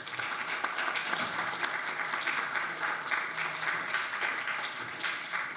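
Audience applauding steadily, beginning to die down near the end.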